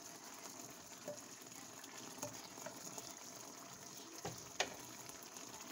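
Fish and sauce simmering in a pan, a faint steady bubbling hiss, with two light knocks a little after four seconds in.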